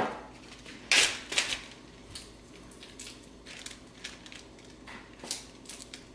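Plastic zip-top bag crinkling and rustling as it is opened and held, loudest in two rustles about a second in, then lighter scattered crinkles and clicks.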